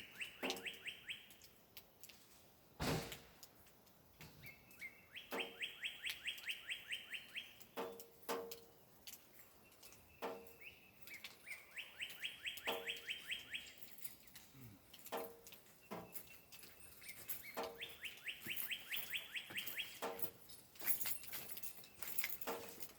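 A songbird singing: a phrase of rapid, evenly repeated rising notes lasting about two seconds, sung over again roughly every six seconds. A single sharp knock sounds about three seconds in.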